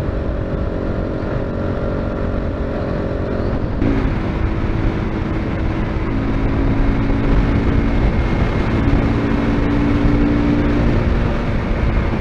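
Zongshen RX3 motorcycle's 250 cc single-cylinder engine running under steady load at about 70 km/h, with road and wind noise. About four seconds in, the sound changes abruptly and the engine note turns steadier, growing a little louder near the middle.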